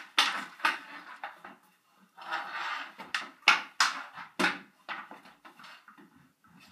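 Hockey sticks knocking against a ball and the concrete floor during a floor-hockey game, with the ball bouncing: a quick string of sharp clacks, the loudest about three and a half seconds in.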